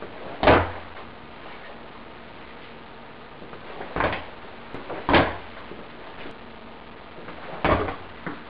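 Kicks in heavy steel-toe Red Wing work boots, heard as four sharp thuds: one about half a second in, then three more spread over the second half.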